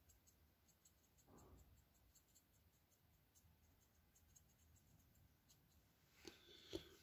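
Near silence: faint room tone with small ticks, and two soft taps near the end.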